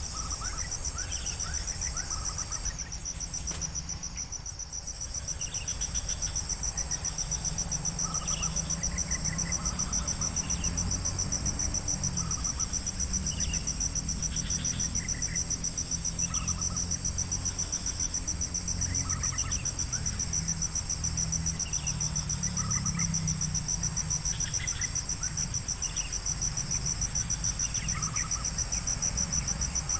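Insects droning in a steady high-pitched trill that breaks off for a couple of seconds about three seconds in, with scattered short chirps over it.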